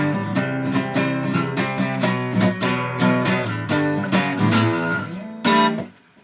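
Guitar strumming the closing chords of the song, ending on a last chord about five and a half seconds in that is cut off shortly after.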